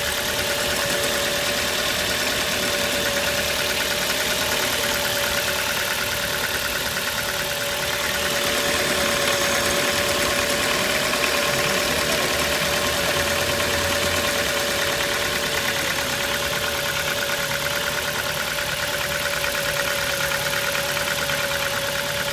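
Ford Focus II 1.6-litre 100 hp four-cylinder petrol engine idling cold, with a steady fast knocking tick in its running.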